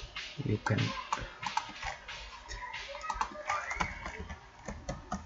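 Typing on a computer keyboard: irregular clicks of keystrokes, several in quick runs.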